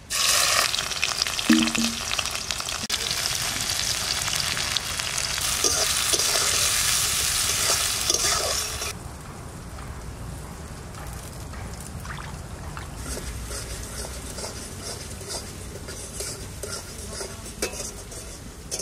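Sliced onions hitting hot mustard oil in an iron wok and sizzling loudly for about nine seconds. The sound then cuts off abruptly to a much quieter stretch of light clicks and water sounds, as curry leaves are rinsed in a pot of water.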